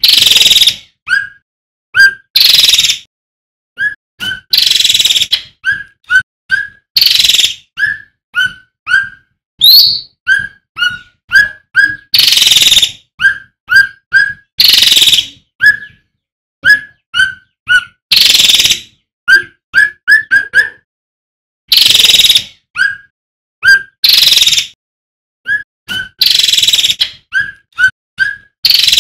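Male cucak ranting singing steadily: quick short rising whistled notes in runs, broken every second or two by loud harsh rasping phrases.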